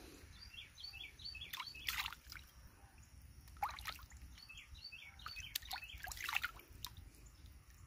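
Faint splashing and dripping of water as a small bass is let go into a pond by hand, a few sharp splashes spread through. A bird sings a quick run of chirps twice in the background.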